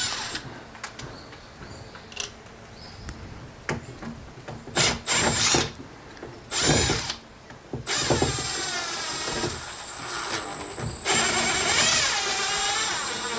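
Power drill driving screws out of an outdoor kitchen cabinet, the front piece being removed: short bursts at first, then longer runs in the second half whose pitch rises and falls with the trigger.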